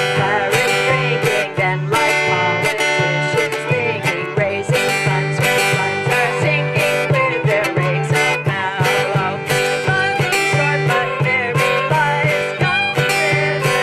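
Music with strummed guitar, playing steadily.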